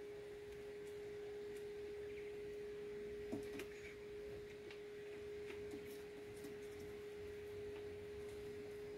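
A steady machine hum held at one unchanging mid pitch, with a few faint short chirps and clicks over it, the clearest about three and a half seconds in.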